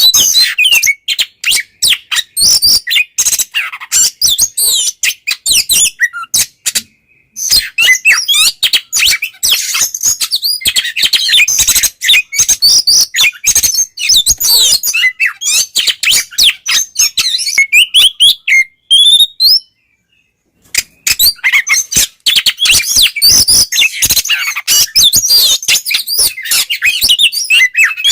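Oriental magpie-robin (kacer) in full, continuous song ("ngeplong"): a fast, varied stream of loud whistles, trills and sharp chattering notes. It breaks off briefly about seven seconds in and again about twenty seconds in.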